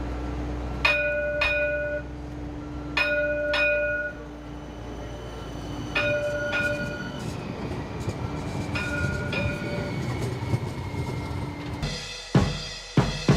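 Streetcar bell ringing in double strokes, ding-ding, four times over about ten seconds, as the streetcar rumbles along the track. Drum-led music comes in near the end.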